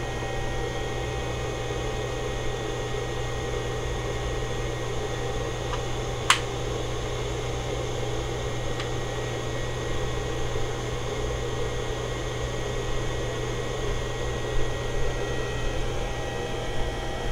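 Steady electrical hum and fan-like whir, with a single sharp click about six seconds in.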